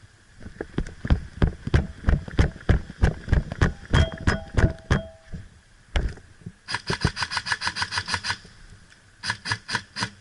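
Airsoft rifles firing, with rapid evenly spaced cracks in bursts on full auto: a long burst about seven seconds in and a shorter one near the end. Before these, an uneven run of sharp snaps and knocks.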